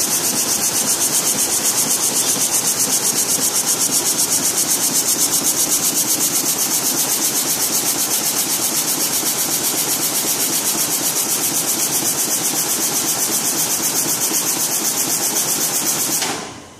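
Shuttleless jet weaving loom running at speed: a rapid, even beat from the weaving motion over a steady high hiss. It cuts off sharply just before the end.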